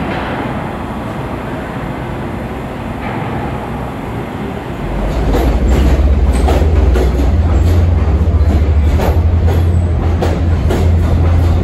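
A New York subway pump train, made of gutted R17/R21/R22 cars, running on the rails: at first a moderate rumble as it pulls away, then about five seconds in a much louder close pass, with a heavy low rumble and a quick run of wheel clicks over the rail joints.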